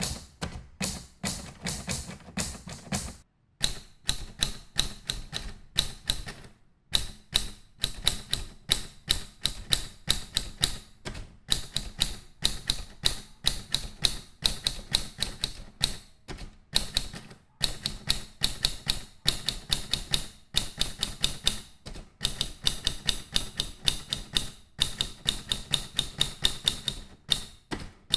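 Typewriter being typed on quickly: a rapid, uneven run of key strikes, broken by a few brief pauses.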